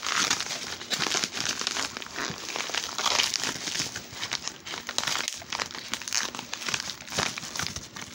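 Yellow padded mailer envelope crinkling and rustling as it is handled and pulled open, a dense run of irregular paper crackles with no pauses.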